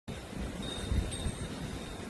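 Outdoor ambience: an irregular low rumbling noise, with thin high ringing tones that come and go, like a wind chime.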